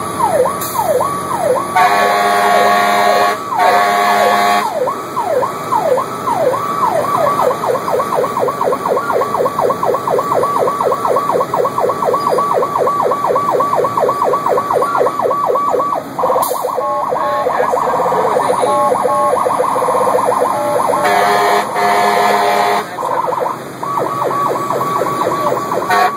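Emergency siren on a rescue squad truck, heard from inside the cab while responding to a call. It wails up and down, then switches to a fast yelp and another pattern, and the truck's air horn blasts twice near the start and again for a couple of seconds near the end.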